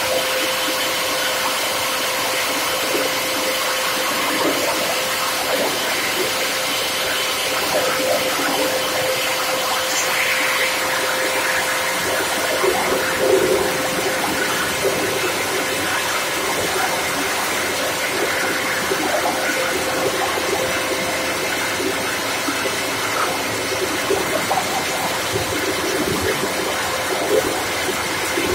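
Plastic scrap grinder running steadily while PET bottles are fed into its hopper and cut up: a constant hum under a dense, irregular crackle of plastic being chopped.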